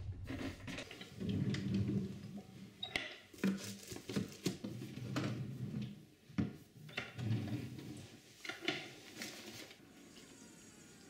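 Objects being handled and moved about: scattered knocks and clicks with rustling between them, thinning out near the end.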